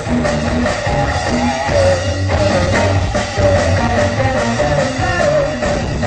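Loud band music with guitar over a steady beat and repeating bass notes.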